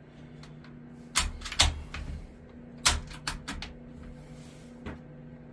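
Airgun fitted with a Huma Air Mod 50 suppressor being cycled and fired: a run of sharp clicks and clacks. The loudest come a little over a second in and just under three seconds in, with lighter clicks between them and one more near the end.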